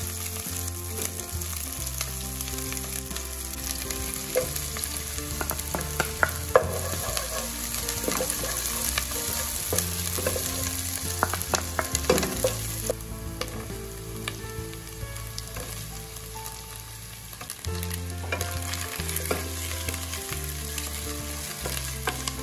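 Chopped onion and garlic sizzling in hot oil in a nonstick pot, stirred with a wooden spoon that scrapes and taps against the pan now and then.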